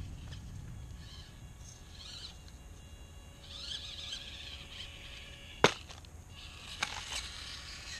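Birds chirping in the background, with a single sharp knock about five and a half seconds in and two lighter clicks a second later. The knocks come as the micro RC crawler tips over the top of the wooden ramp and drops onto the wooden planks.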